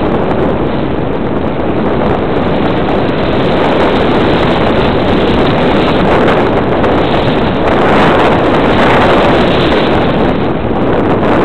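Steady rush of wind and motor noise on the onboard camera of a radio-controlled model airplane in flight, swelling a little about eight seconds in.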